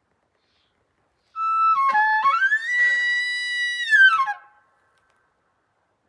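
Elk bugle: one whistling call that starts on a few stepped lower notes, rises to a high held note for about a second, then falls away and stops, about three seconds in all.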